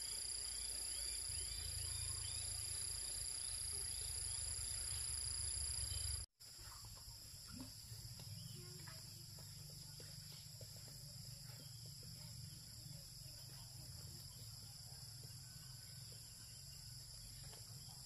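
Insects trilling steadily in several high-pitched tones over a low rumble. About six seconds in the sound drops out briefly and comes back quieter, the insect trilling carrying on with a few faint ticks.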